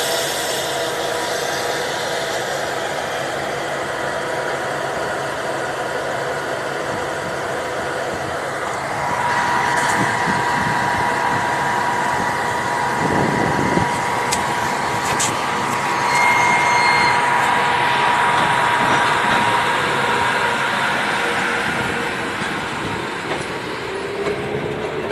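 Electric commuter train pulling out past the platform, its cars' wheels and running gear rumbling on the rails close by. A steady whine joins about nine seconds in and fades around twenty seconds.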